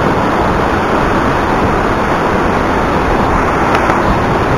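Falling water at the Rhine Falls: a loud, steady rush with no breaks.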